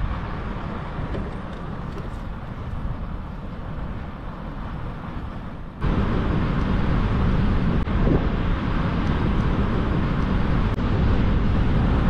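Wind buffeting the microphone as a steady low rush, with no engine tone. The rush jumps abruptly louder about six seconds in.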